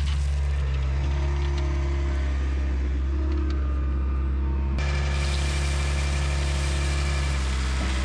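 Skid steer loader's engine running steadily, a continuous hum, with gravel spilling from its bucket into the trench at the start.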